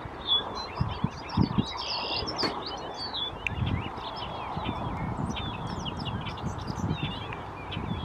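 Male bobolink singing: a rapid, jumbled run of bubbly chirping notes, most crowded in the first three seconds and then more scattered. A few low thumps sound underneath.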